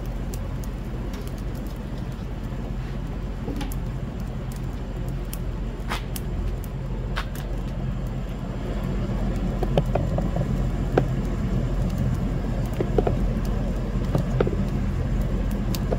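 Chicken breasts cooking on a charcoal grill, with a faint hiss and scattered sharp clicks and pops, more of them in the second half, over a steady low rumble.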